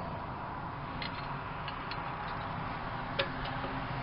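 A few light metallic clicks and ticks of a steel mounting bolt and flat washers being handled and fitted, the sharpest about three seconds in, over a steady hiss of wind.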